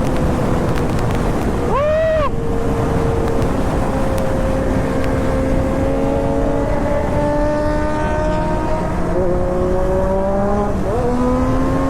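Sport motorcycle engines, a Triumph Daytona 675 and a Kawasaki ZX-6R, running under way with their pitch slowly drifting over a steady rush of noise. A quick rev rises and falls about two seconds in, and the pitch steps up twice near the end.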